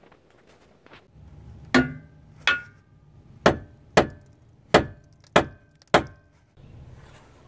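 Seven sharp knocks of a hand tool striking the metal bump stop mount under a Dodge Grand Caravan. They come about every half second to second, and each rings briefly.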